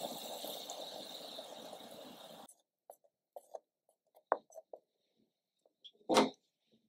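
Water boiling in a pot, a steady bubbling hiss that cuts off suddenly about two and a half seconds in as the heat is turned off. After that come soft scattered taps of wooden chopsticks in the pot, and one louder knock near the end.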